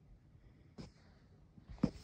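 Short breaths close to the microphone: a soft puff about a second in and a louder one near the end.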